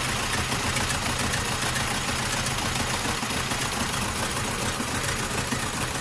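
Vauxhall Astra Z14XEP 1.4 petrol four-cylinder engine idling with a bad misfire. One cylinder has no compression, which the mechanic puts down to a sticking valve rather than the rings or head gasket.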